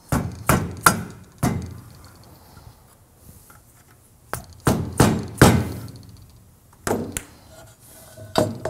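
Hammer tapping the top of a lower control arm's inner shaft through a plastic insert, in three bunches of sharp knocks, about ten in all, each with a short ring. The taps center the shaft in its new Delrin-and-aluminium Del-A-Lum bushings.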